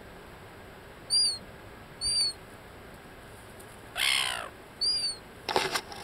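Gulls calling: short high squeaks about a second apart, and about four seconds in one louder harsh call that falls in pitch. A short rough burst of noise follows near the end.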